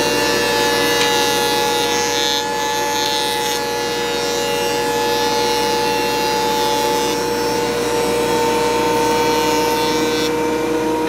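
Benchtop thicknessing machine running steadily with a motor whine and cutting noise as hardwood strips feed through it, the higher hiss changing a few times as boards pass.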